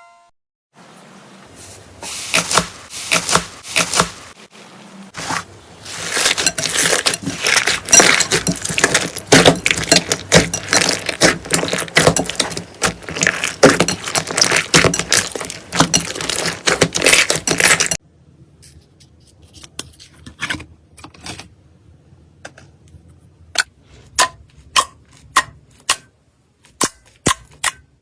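Slime squished and kneaded by hand, giving a dense run of wet crackling and popping clicks that cuts off abruptly about eighteen seconds in. Sparse single pops and clicks follow.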